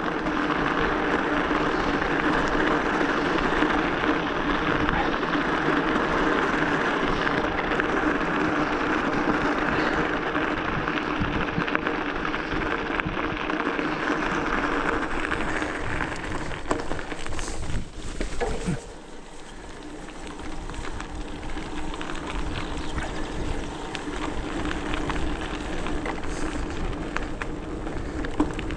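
Hardtail e-bike riding a forest trail: a steady rush of wind and tyre noise with a steady low hum, which drops sharply about nineteen seconds in and then slowly builds again.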